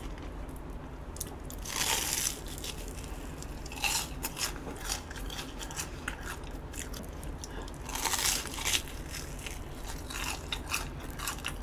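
Crunchy bites into a crisp-battered Korean hotdog, followed by chewing. The two loudest crunches come about 2 seconds and about 8 seconds in, with small mouth clicks in between.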